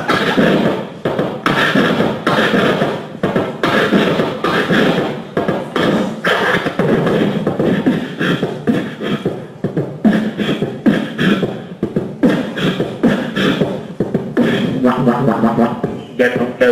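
Human beatboxing into a handheld microphone: fast, steady rhythm of drum-like percussive sounds made with the mouth. A pitched vocal line joins the beat near the end.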